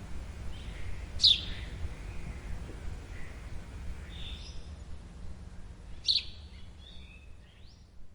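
Birds calling: a sharp, quickly falling chirp about a second in and another about six seconds in, with shorter, fainter calls between them, over a steady low rumble.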